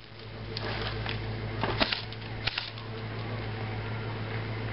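A steady low hum under a faint outdoor hiss, with a few sharp clicks and snaps, loudest about two seconds in.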